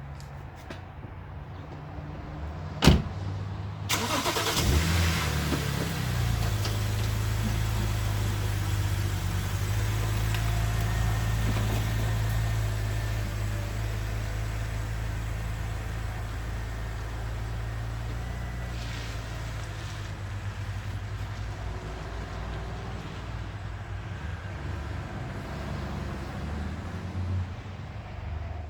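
2008 BMW Z4 3.0si's inline-six engine started with fresh oil: a sharp click about three seconds in, then the engine starts about a second later and settles into a steady idle that slowly grows quieter.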